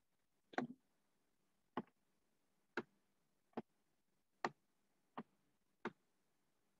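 Seven short, sharp clicks, about a second apart, from the pointer input as lines are drawn on an on-screen whiteboard.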